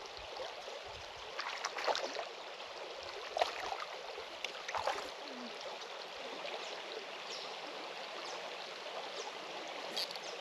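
Steady rush of water running at a weir, with a few brief clicks about one and a half, three and a half and five seconds in.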